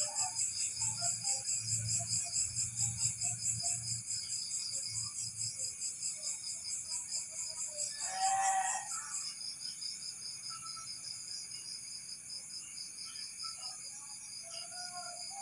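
Night insects, crickets or similar, chirping in a steady, rapidly pulsing high-pitched chorus. About eight seconds in, a louder pitched animal-like call lasts about a second.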